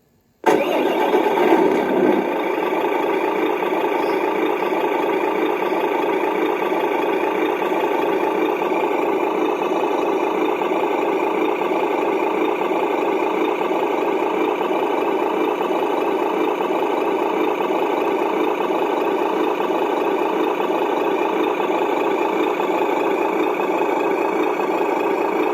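RC truck sound module playing a simulated truck engine through a small onboard speaker. It starts up abruptly about half a second in, runs louder and rougher for a couple of seconds, then idles steadily, thin and lacking deep bass.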